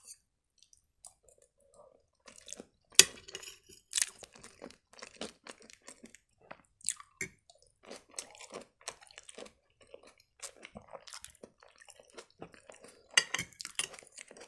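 Close-miked chewing and crunching of a mouthful of buckwheat and salad, with soft wet mouth sounds. Scattered sharp clicks and taps run through it, the loudest about three and four seconds in and a cluster near the end.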